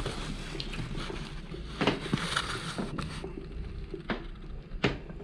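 A handful of short sharp clicks and knocks, scattered unevenly, with the loudest about two seconds in and another near the end, over a steady low hum.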